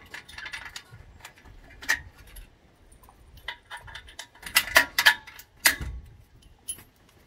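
Aluminium ladder plates and locking pins of a pontoon diving board frame clinking and tapping as the pins are fitted by hand: a scatter of sharp metal clicks, the loudest a little past the middle.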